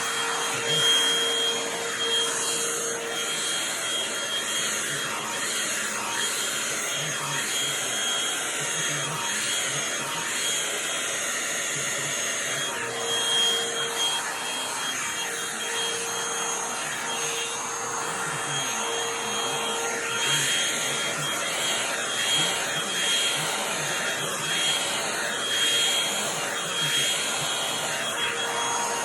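Handheld hair dryer running steadily: a rush of blown air with a faint high whine.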